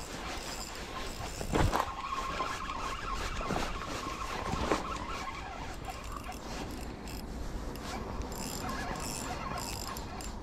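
Spinning reel being cranked during a lure retrieve, with a steady squeaky whine for about three seconds and a couple of light knocks, over wind rumble on the microphone.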